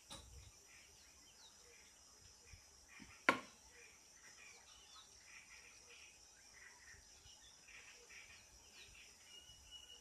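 Faint bush ambience: a steady high insect buzz, likely crickets, with scattered short bird chirps. One sharp click comes about three seconds in and is the loudest sound.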